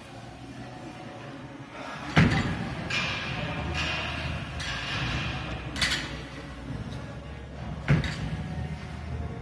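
Loaded barbell cleaned twice on a wooden lifting platform: a heavy thud about two seconds in as the lifter's feet stamp and the bar is caught on the shoulders, a sharper knock a few seconds later, and a second heavy thud near the end as the next clean is caught in a squat.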